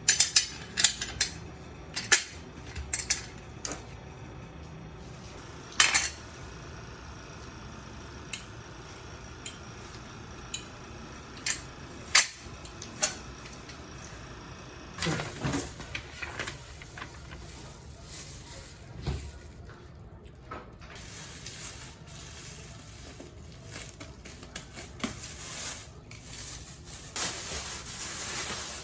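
Dishes and utensils being handled, with scattered sharp clinks and knocks, loudest in the first half, and denser rustling and handling noise in the second half.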